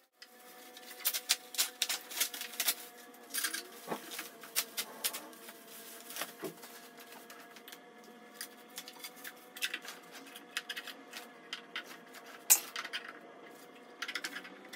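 Packaging being pulled off an electric kick scooter and its handlebar handled: irregular crinkling of plastic wrap with light clicks and taps, over a faint steady hum.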